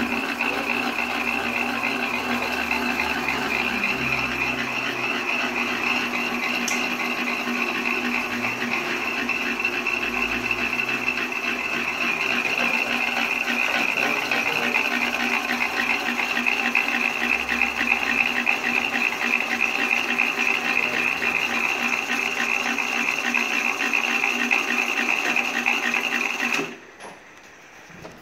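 Yarn ball winding machine running steadily, a machine whine with a fast rattle, then stopping abruptly near the end.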